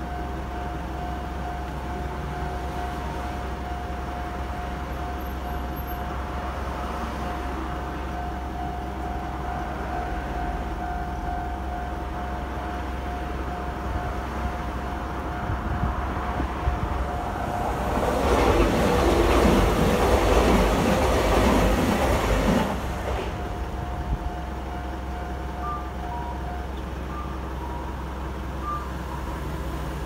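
Japanese level-crossing warning bell ringing steadily, with a Kintetsu Minami-Osaka Line electric train passing through the crossing for about five seconds past the middle, the loudest part. The bell falls silent a few seconds before the end as the barriers lift.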